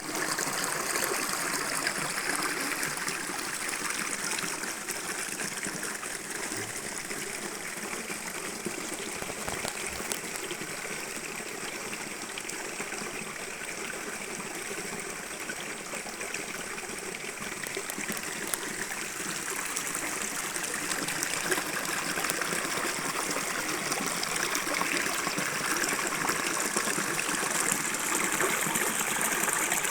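Waterfall: water pouring and splashing in a steady rush, growing a little louder toward the end.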